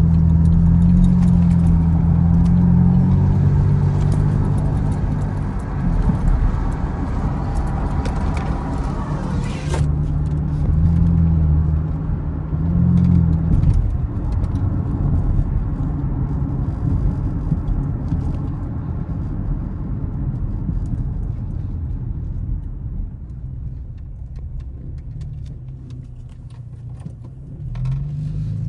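Chevrolet Camaro's engine while driving: it revs up in the first few seconds, rises twice more about halfway through, then eases off to a quieter low cruise and picks up again at the very end. A hiss of road or wind noise runs along with it and cuts off abruptly about ten seconds in.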